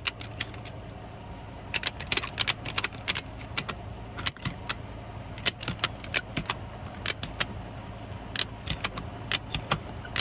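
Ratchet strap buckle being cranked tight around a tractor tire, irregular clusters of sharp metallic clicks, cinching the tread to push the loose bead out toward the rim.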